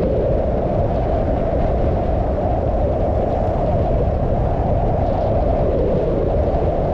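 Steady, loud rushing noise of a downhill ski run: wind on the microphone and skis sliding over snow, with a low rumble underneath.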